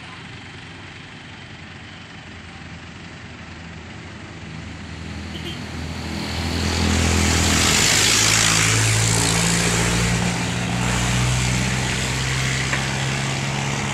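A motor vehicle's engine running close by, with a steady hiss; the engine and hiss grow louder about six seconds in and stay loud.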